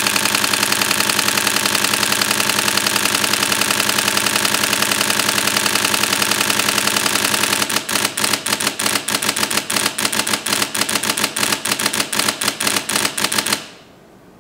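Nikon D4s DSLR shutter and mirror firing a continuous high-speed burst onto a Sony XQD card. About seven and a half seconds in, the rapid rattle gives way to slower, uneven shots as the camera's buffer fills and the shooting rate falls to the card's write speed. The shots then stop.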